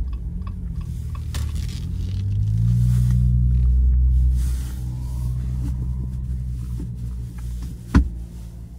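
Jeep Gladiator's engine pulling up a snow-covered hill, revving up about two seconds in and easing off about four and a half seconds in. A single sharp knock near the end.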